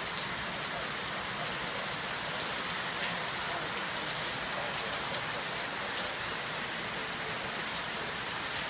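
Heavy cloudburst rain pouring down: a steady, even hiss with scattered faint drop ticks.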